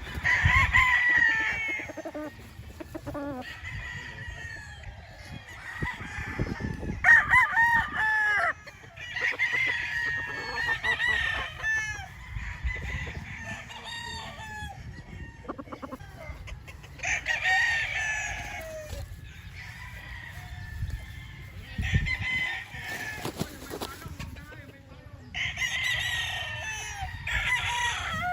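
Several roosters crowing one after another, long cock-a-doodle-doo calls every few seconds, with hens clucking between the crows.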